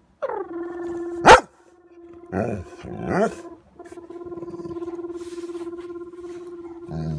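A dog growling and grunting in short, low, rough bursts against a long, steady, wavering note that slides down into place and is held for seconds at a time. There is a sudden loud squeal about a second in.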